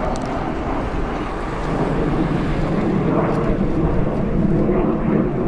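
Kawasaki T-4 twin-turbofan jet trainers flying overhead in formation: steady jet engine noise that swells slightly about two seconds in.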